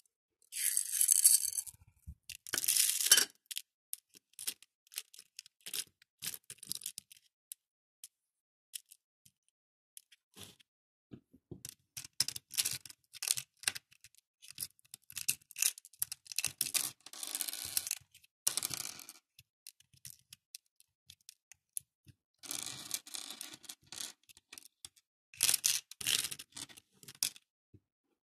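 Small plastic faux pearl beads clicking and rattling against each other and the plastic as they are picked out of a plastic tub and dropped into a compartment of a plastic grid organizer box. The clicks come in several bursts with pauses between, stopping shortly before the end.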